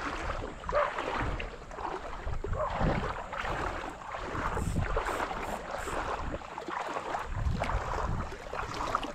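Wind buffeting the microphone over lapping shallow water. Near the end a small hooked whiting splashes at the surface as it is reeled in close.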